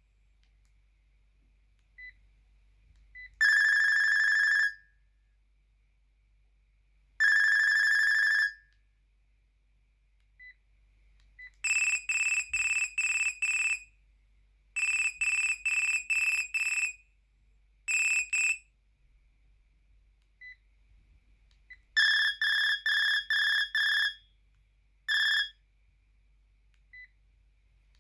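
Sharp GX12 mobile phone's built-in ringtones previewed one after another through its small speaker: short electronic beep tunes with pauses between them, the first two as long single tones, the later ones as rapid pulsed trills of about four beeps a second. Faint short blips sound in the gaps.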